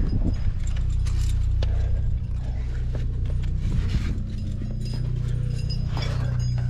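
Climbing gear clinking and scraping: irregular metallic ticks and clicks of carabiners and quickdraws on a climber's harness, over a steady low rumble.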